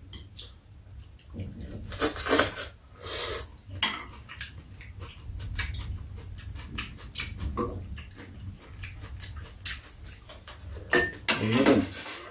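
Metal chopsticks and spoons clicking and scraping against ceramic bowls during a meal of glass noodles, with scattered light clinks throughout. Two louder noisy bursts come about two and three seconds in.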